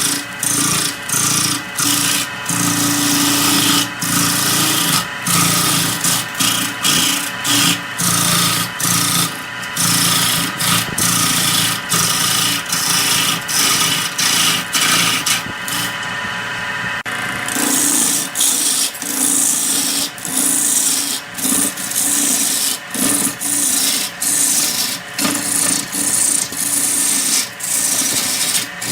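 A wood lathe running while a tool scrapes against the spinning red wood blank. The scraping hiss is broken by frequent short breaks over a steady machine hum, and the high hiss drops out briefly a little past halfway.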